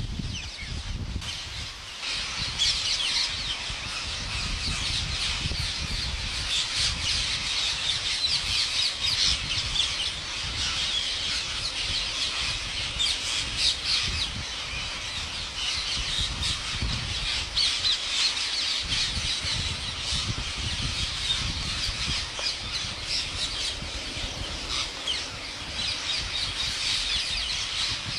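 A large flock of rose-ringed parakeets squawking and screeching all at once, a dense, continuous din of overlapping harsh calls that grows fuller about two seconds in.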